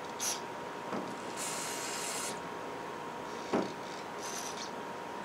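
Aerosol carburetor cleaner sprayed through its straw into a lawnmower carburetor's main jet to flush out debris: a brief hiss, a longer hiss of about a second, and another brief hiss near the end. There is a faint knock about a second in and a sharp knock about three and a half seconds in.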